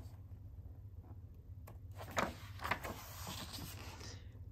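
A page of a large hardcover picture book being turned: a soft paper rustle with a couple of light taps, starting about two seconds in and lasting about two seconds, over a faint low hum.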